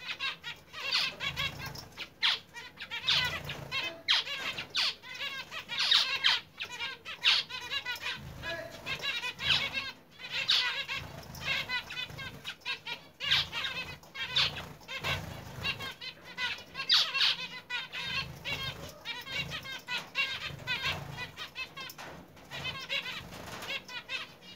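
A flock of caged zebra finches calling in dense, rapid, short nasal chirps, with wings fluttering as birds fly about the cage.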